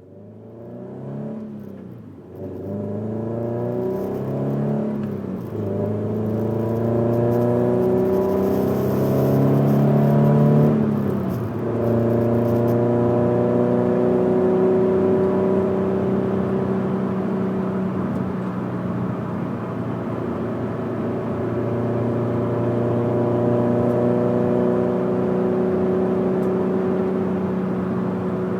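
Scion FR-S's modified 2.0-litre flat-four boxer engine, with unequal-length headers and an aftermarket exhaust, accelerating through the gears. The pitch climbs and falls back at each upshift over the first dozen seconds, then holds a steady note while cruising.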